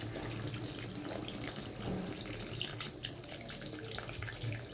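Water poured in a thin, steady stream into a kadai of chicken curry, splashing into the browned masala and gravy. This is the water being added to the fried masala to make a light gravy.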